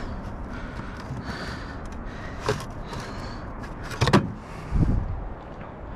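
Rummaging through junk: a sharp knock about two and a half seconds in, then two heavier thumps about a second apart, the first the loudest.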